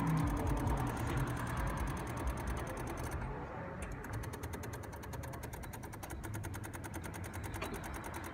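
Rapid, steady clicking from a car's engine bay, many clicks a second, with the engine off. The owners suspect a loose battery connection or the alternator.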